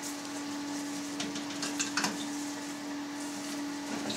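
Soft rustling and handling as a cloth lining is folded over cheese curd in a plastic mould and pressed down by hand, with a few light taps, over a steady hum.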